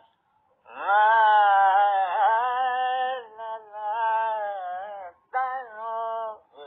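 An elderly man singing wordless melodic phrases, the pitch gliding up and down, with a short break a little after five seconds. He is vocalising sur, the held and ornamented pitch of Hindustani classical music, to show what it is.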